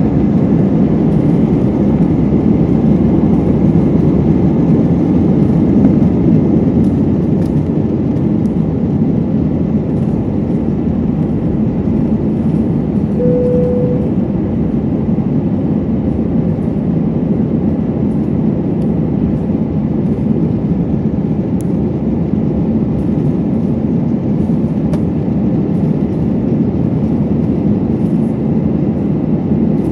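Airbus A320 cabin noise under takeoff power: the jet engines and the airflow make a steady, loud roar, easing slightly after about eight seconds. A short single tone sounds once about thirteen seconds in.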